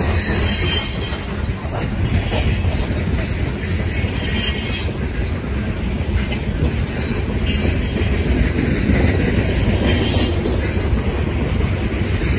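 CSX freight train's steel-wheeled gondola cars rolling past close by: a steady rumble of wheels on rail with occasional clicks.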